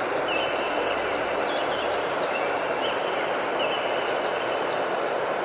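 Shallow river rushing steadily over a stony bed. Thin high tones sound above it three times, each held for a moment with small upward flicks.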